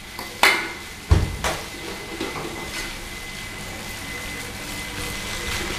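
Metal cookware clanking against a steel wok, with sharp knocks about half a second and a second in, over the sizzle of egg fried rice frying, which slowly grows louder.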